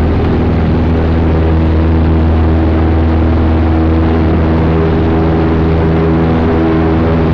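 Cessna 172's piston engine and propeller running steadily, heard from inside the cockpit as a loud, even drone.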